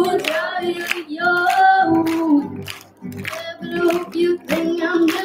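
A girl singing solo into a microphone, a melodic line with notes that bend and are held briefly.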